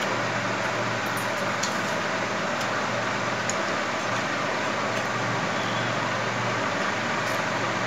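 Steady mechanical whirring hum and hiss in the room, with a few faint clicks of a fork against a plate.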